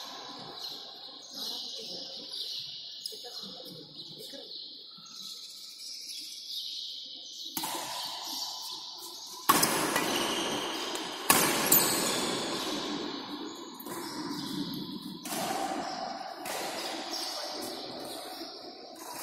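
Badminton rally: sharp racket strikes on the shuttlecock and players' footsteps on the court floor, echoing in a large hall. It starts about halfway through after a quieter spell between points.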